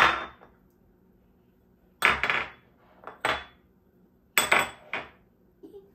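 Dishes and utensils clinking and clattering: about half a dozen sharp knocks in small groups, each ringing briefly.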